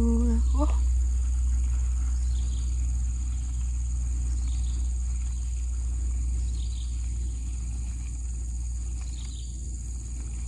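Steady high-pitched drone of insects in the plantation, over a low rumble, with a faint chirp about every two seconds and a brief hum-like call in the first second.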